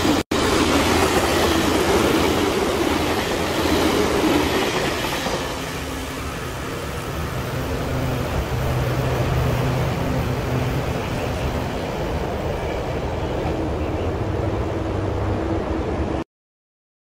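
Taiwan Railways TEMU1000 Taroko tilting electric train passing close by, its wheels and running gear rumbling loudly for the first five seconds or so, then fading to a steadier, quieter rumble with a low hum as it pulls away. The sound cuts off abruptly near the end.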